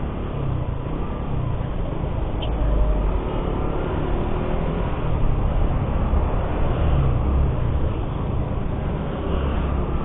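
Suzuki GSX-R150's single-cylinder engine running as the motorcycle is ridden, its note rising and falling faintly, under heavy wind rumble on the rider's microphone.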